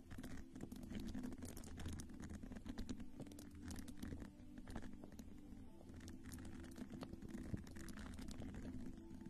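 A round-headed skin-care tool brushing and patting close to the microphone: many faint crackling taps and rustles in quick succession, over a low steady hum.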